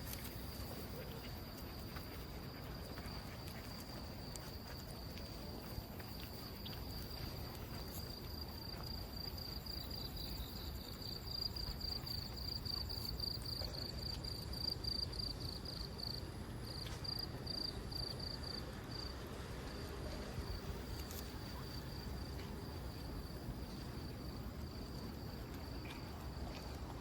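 Insects singing: a steady high-pitched trill, which breaks into rapid, evenly pulsed chirping for several seconds in the middle, over low outdoor background noise.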